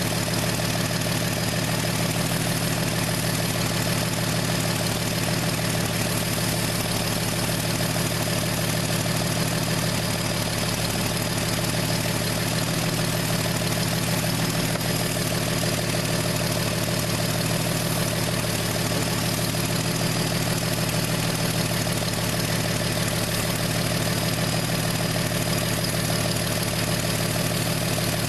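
A 1968 Plymouth Valiant's slant-six engine idling steadily as it warms up.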